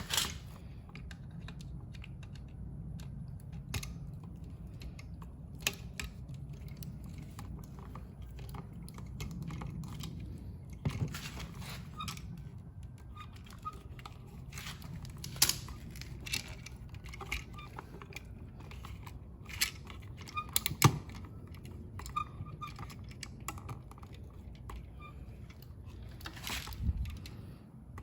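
Scattered small clicks, taps and rustles of a GFCI outlet and its wires being handled and connected at a wall box, with a few sharper clicks about 15 and 21 seconds in.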